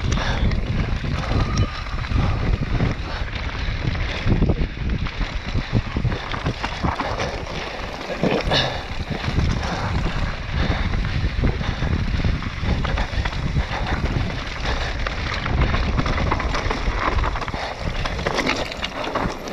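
Wind buffeting the microphone over the crunch and rattle of a mountain bike descending fast on loose rock and scree, with constant irregular clatter from the tyres and frame.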